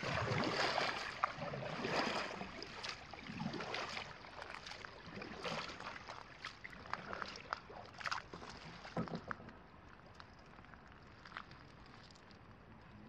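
Double-bladed kayak paddle splashing into and out of calm lake water, stroke after stroke, with dripping and sloshing. The splashes grow fainter as the kayak paddles away, leaving only a faint hiss near the end.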